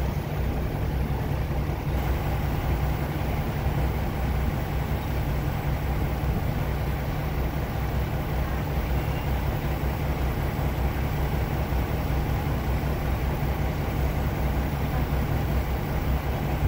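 Diesel passenger train idling at a standstill: a steady low engine hum that does not change.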